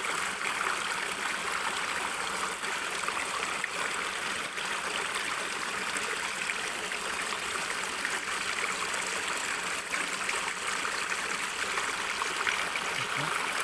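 Flowing water running steadily, an even rushing trickle.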